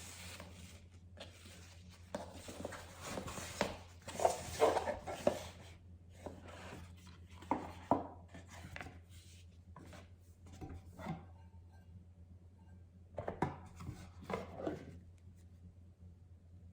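Irregular rubbing and rustling handling sounds with a few light knocks, over a steady low hum.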